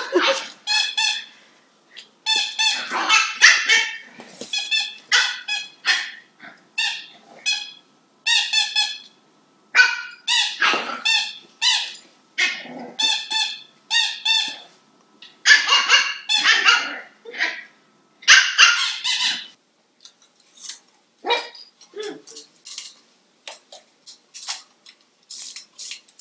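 Cavalier King Charles spaniel puppy barking in short, high yaps, over and over. The yaps stop near the end, leaving only faint scattered taps.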